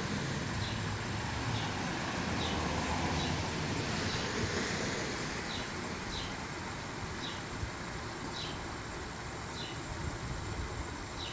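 Four freshly spun fidget spinners, two metal and two clear plastic, whirring on their bearings on a hard tabletop, the steady whir slowly fading as they lose speed.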